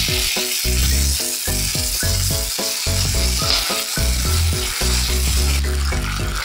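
Okonomiyaki sizzling on a hot griddle plate, with kushiage sauce hissing and bubbling where it drips and pools on the hot surface. Background music with a quick, even beat of pitched notes and bass plays over it.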